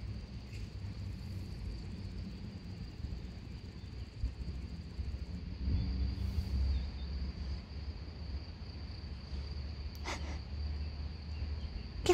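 Insects chirring in one steady, high-pitched tone, over a low rumble, with a short click about ten seconds in.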